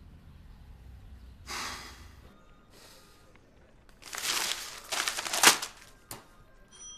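Newspaper pages rustling and crackling as the paper is handled, loudest about four to five and a half seconds in, ending with a single click. A short breath like a sigh comes earlier, about a second and a half in.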